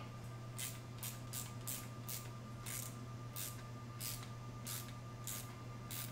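A hand tool tightening the exhaust clamp on a stainless slip-on muffler, heard as a series of short, high, scratchy strokes about two a second.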